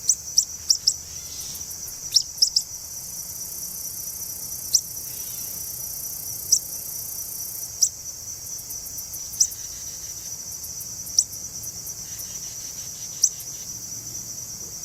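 Insects trilling in a steady, high, unbroken chorus, with a bird giving short sharp chirps: several in quick succession at first, then one every second or two.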